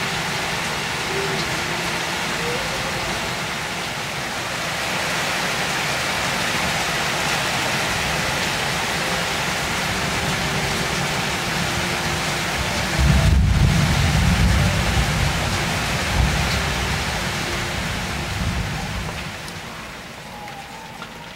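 Steady rain falling on leaves, an even hiss with drips. A deep low rumble comes in about two-thirds of the way through and lasts several seconds, and the rain drops in level near the end.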